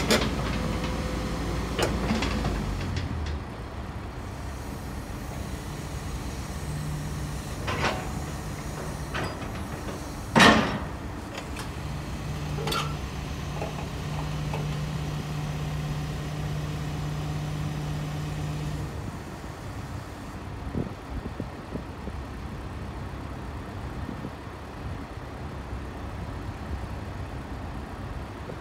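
Sumitomo SH200-5 hydraulic excavator working: its diesel engine runs under hydraulic load as the boom and arm move, with a steady hum about midway. Several knocks and clanks sound, the loudest about ten seconds in.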